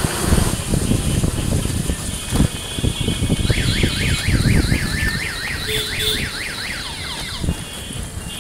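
An electronic warbling siren sounds for about four seconds, starting about three and a half seconds in, its pitch sweeping up and down about four times a second. Under it runs the rumble of street traffic, with low bumps and thumps in the first half.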